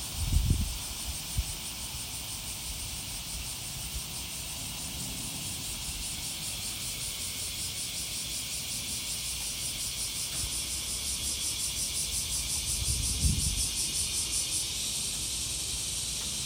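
A chorus of cicadas buzzing steadily, with a fast even pulsing that grows a little louder partway through. There are a few low thumps on the microphone, one near the start and one about 13 seconds in.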